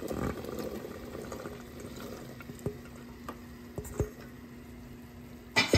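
Cut Japanese knotweed stalks tipped from a bowl into a saucepan of hot sugar syrup: a splashy tumble of pieces into the liquid in the first second, then scattered plops and light knocks as the last pieces slide in. A sharp, louder knock comes near the end.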